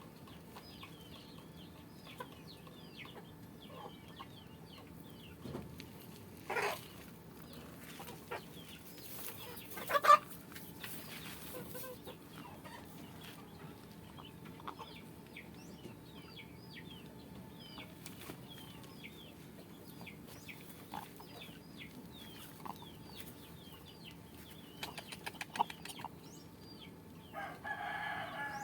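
Chickens clucking, with a steady scatter of short high chirps throughout. There are a few sharper sounds, the loudest about ten seconds in, and a short pitched call near the end.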